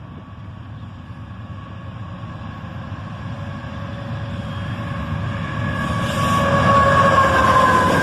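CSX freight train approaching at track speed behind a CM44AH locomotive, its rumble growing steadily louder. Over the last few seconds steady high tones come in above the rumble and the sound peaks as the train nears.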